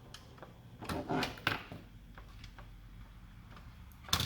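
Bench handling noises: a few clicks and knocks as tools are picked up and set down, the sharpest knock near the end, over a low steady hum.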